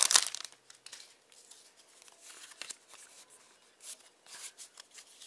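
Foil Pokémon booster pack wrapper crinkling and tearing in a short, loud burst right at the start, then quieter rustling and light clicks as the cards are slid out and handled.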